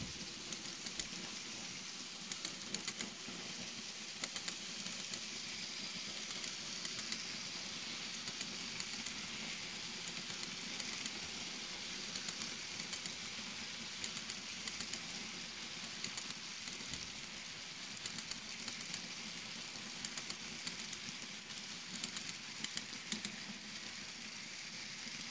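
N scale model train rolling along the track: a steady hissing rush of the small wheels on the rails and the running gear, with scattered light clicks.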